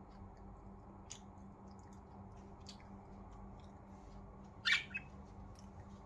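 Budgerigars chirping: a few faint short chirps, then one loud squawky chirp with a smaller one right after, about three-quarters of the way through, over a faint steady hum.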